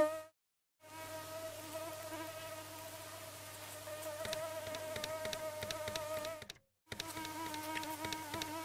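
Mosquito buzzing sound effect: a steady, unwavering whine that cuts out for a moment near the end and starts again. About halfway through, a light ticking of roughly three ticks a second joins it.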